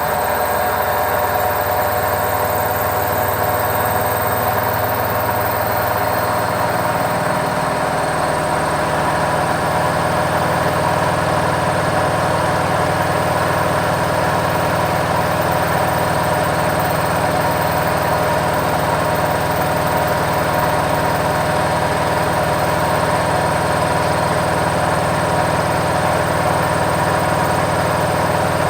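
Washing machine in its spin cycle, giving a steady mechanical hum and whir. Its low hum rises in pitch about seven seconds in, then holds steady.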